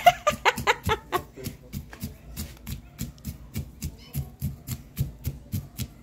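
Fried peanuts being pounded in a mortar with a pestle for peanut sambal: quick rhythmic strikes, about four a second, with a brief voice at the start.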